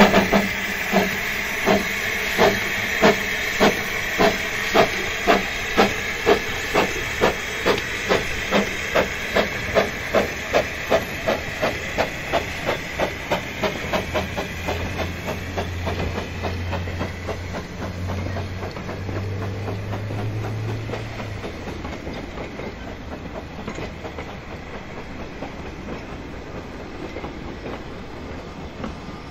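Narrow-gauge steam locomotive 'Blanche' pulling away with a train of carriages: sharp exhaust beats that gradually quicken and fade as she draws off, with steam hissing from the cylinders at first. In the second half the carriages rumble and clack past over the rail joints.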